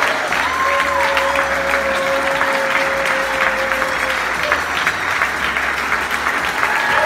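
Audience applauding steadily, a dense patter of many hands clapping, with music underneath holding a long note through the first half.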